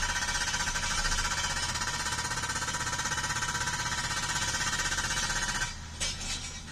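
Cat 305 mini excavator's hydraulic hammer breaking rock, rapid steady blows over the excavator's engine hum. The hammering stops near the end, followed by a couple of knocks.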